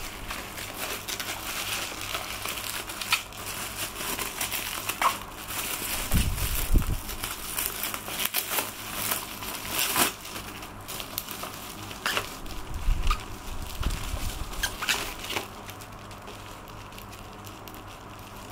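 Bubble wrap and plastic packaging being pulled and handled, crinkling and rustling irregularly with scattered sharp crackles. It goes quieter near the end.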